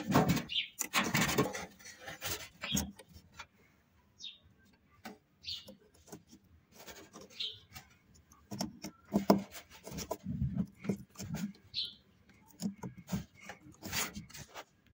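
Irregular knocks, clicks and scraping from hand work on washing machine parts, with a few brief high squeaks, quieter for a few seconds in the middle.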